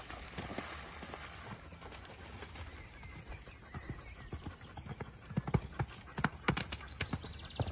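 Hoofbeats of a horse cantering on a wet sand arena, a run of soft thuds that grow louder in the second half as the horse comes closer.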